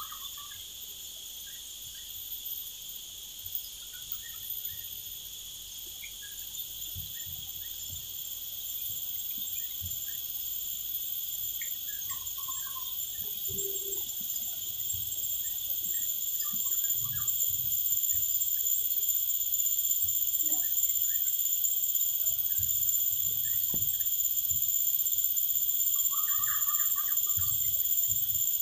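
Steady, high-pitched insect chorus that swells gradually louder, with a few short bird chirps scattered over it.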